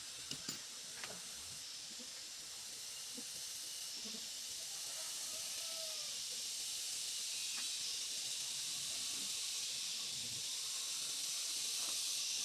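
A steady high-pitched hiss, growing slightly louder, with a few light clicks in the first second.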